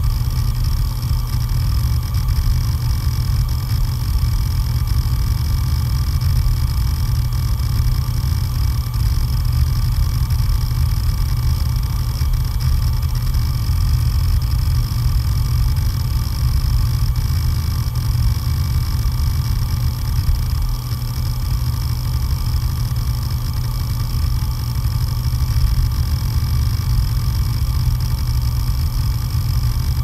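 A damaged hard disk drive with its cover off runs steadily: a rough, heavy low hum from the spinning platter and motor, with a faint steady whine above it. There are no separate clicks.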